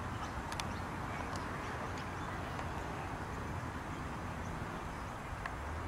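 Steady outdoor background noise with a low rumble, like wind on the camera microphone, broken only by a few faint clicks.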